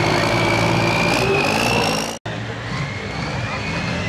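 Modified Ford 9600 diesel pulling tractor running hard under load, with a high whine slowly rising in pitch. It cuts off abruptly about halfway through. A second diesel pulling tractor follows, a little quieter, with its own whine rising.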